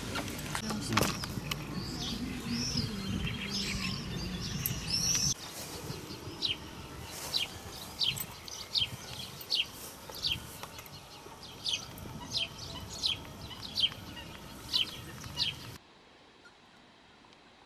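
Small birds chirping outdoors: curving warbled whistles over low background noise for the first few seconds, then a run of short, sharp high chirps at about one and a half a second. Near the end the sound drops away to near silence.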